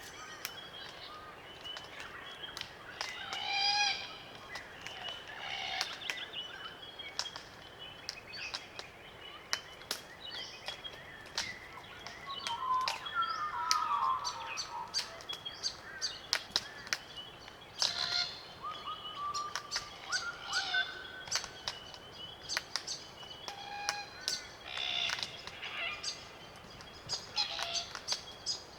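Small flock of glossy black cockatoos feeding on Allocasuarina cones: frequent sharp clicks from their beaks working the cones, with repeated short creaking, grating calls. A lower warbling phrase comes around the middle.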